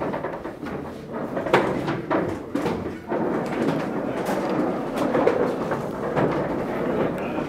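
Chairs being picked up and set back in place, with irregular knocks, clunks and scrapes over the shuffling and low hubbub of a room full of people moving about.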